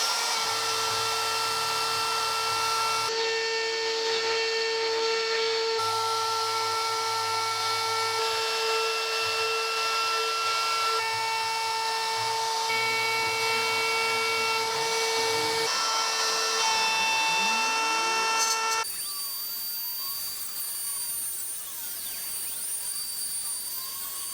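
CNC router at work: the router spindle spins up into a steady high whine, with the axis motors' tones stepping to new pitches every few seconds as the machine moves. About 19 s in the sound changes and gets quieter.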